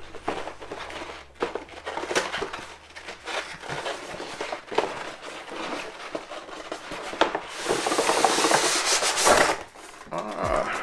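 Cardboard box being handled, with irregular scraping and light knocks of cardboard, then about two-thirds of the way through a steady rubbing hiss of roughly two seconds as a polystyrene foam tray slides out of its cardboard box.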